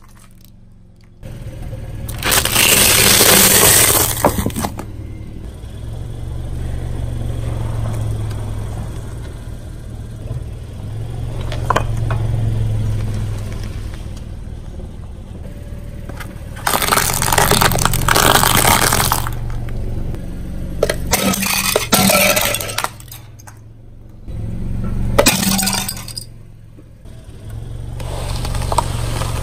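A car tyre rolls slowly over objects and crushes them one after another: small glass light bulbs with metal bases break with crunching and clinking, and soft food squashes, over the low hum of the car creeping forward. There are several loud crushes a few seconds apart.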